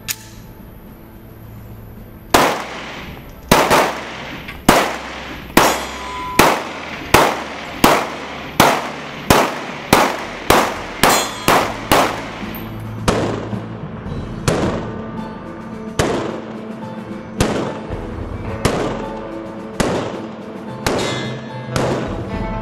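A semi-automatic pistol fired in a long string of single shots. They start about two seconds in at about one a second and quicken to nearly two a second by the middle, and the later shots are softer. Each shot has a short echo off the range.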